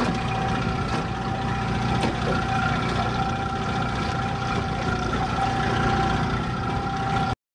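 Boat's outboard motor running steadily under way, a constant drone with a steady high whine over rushing noise, cut off abruptly near the end.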